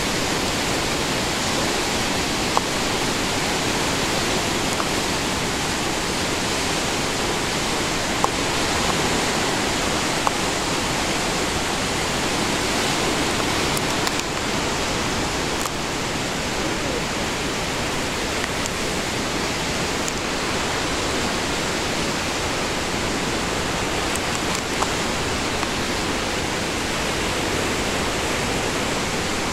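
Steady rush of the Athabasca River's whitewater churning past rock cliffs, an even, unbroken roar of water, with a few faint ticks now and then.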